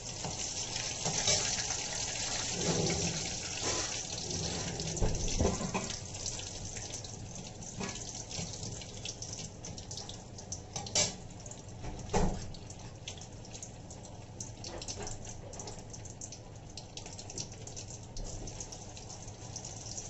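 Malai koftas frying in ghee in a kadhai: a steady sizzle with fine crackling. Two sharp knocks a little past halfway, the spoon striking the pan.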